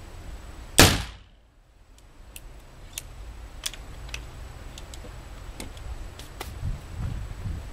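A single shot from a Remington 1858 black-powder percussion revolver, a sharp bang under a second in. It is followed by a scatter of light clicks and knocks as the revolver is handled and laid down on the bench.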